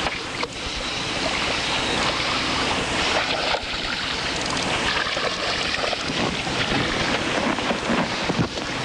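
Steady wind rushing on the microphone over the wash of sea water around a small fishing boat, with a few faint knocks.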